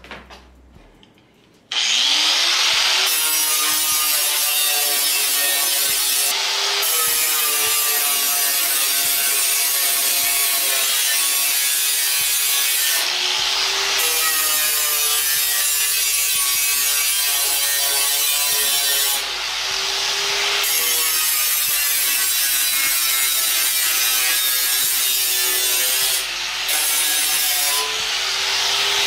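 Electric angle grinder sanding the freshly cut edge of a stainless steel sheet. It starts about two seconds in, spinning up, then runs steadily with a whining motor note that sags and recovers as the disc bears on the metal. It eases off briefly several times.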